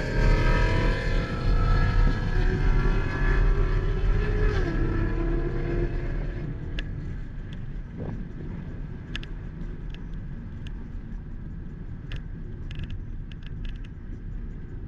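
Car engine winding down after a hard pull: its note falls steadily in pitch and fades over about six seconds, then settles into a low, steady engine and road rumble with a few light clicks.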